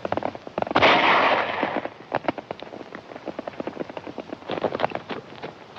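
A single gunshot about a second in, with a ringing tail lasting about a second, over horses' hooves galloping in quick irregular beats.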